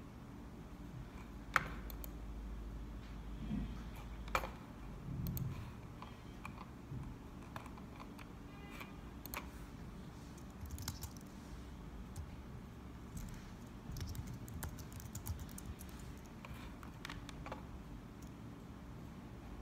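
Occasional clicks of computer keys being pressed, single taps scattered a second or more apart rather than continuous typing, over a low rumble.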